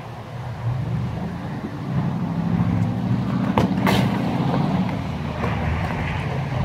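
Soccer ball kicked hard, a sharp thump about four seconds in with a quicker knock just before it, over a low steady rumble.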